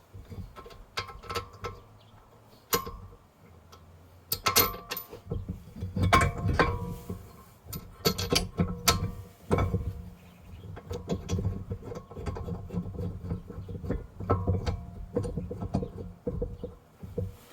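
Hand tools working on car brake parts: a ratchet clicking in quick runs among metal clinks and knocks.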